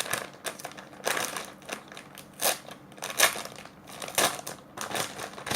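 A squishy's packaging crinkling and rustling in a run of irregular crackles as it is opened by hand.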